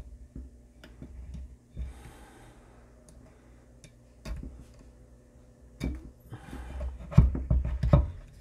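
Hands and a small screwdriver working at the wire lead on a speaker tweeter's terminal: scattered small clicks and taps, with a cluster of louder knocks near the end. The lead's connector is hooked on tight and will not come off. A couple of soft breaths can be heard.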